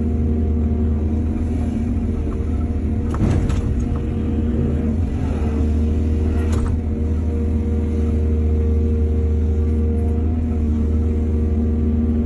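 Excavator's diesel engine running steadily under load, with two sharp knocks about three seconds and six and a half seconds in.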